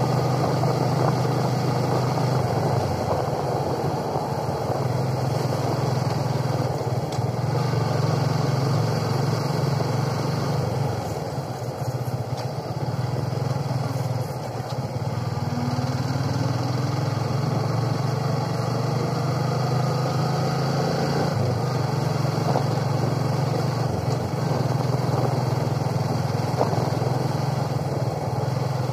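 Yamaha motorcycle engine running steadily while being ridden, heard from the rider's seat as a constant low drone with road noise, its pitch rising briefly about halfway through.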